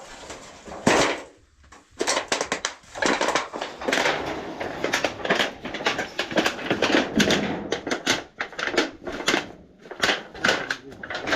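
A busy, irregular run of scrapes and knocks, several a second, following one sharp knock about a second in.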